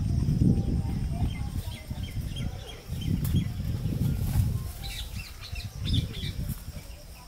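Small birds chirping in short bursts over a loud low rumble that rises and falls in gusts, the rumble fading near the end.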